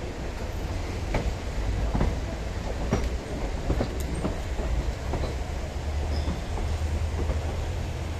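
Indian Railways passenger coach rolling at low speed on leaving the station, under a steady low rumble. Its wheels clack over rail joints and points roughly once a second, at uneven spacing.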